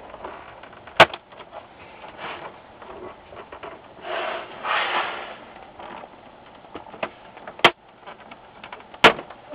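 Plastic front bezel of a Samsung 215TW LCD monitor being pried off by hand: sharp snaps as its little plastic catches release, once about a second in and twice near the end. Plastic scrapes and rubs between the snaps as the bezel is flexed and worked around the edge.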